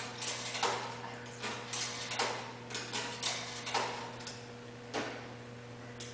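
A string of short, irregular rustles and knocks, about ten over several seconds, with a steady electrical hum underneath.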